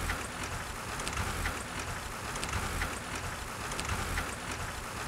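Wind noise buffeting the microphone over the road noise of a pedal-powered group bike rolling along a street, with faint ticks now and then.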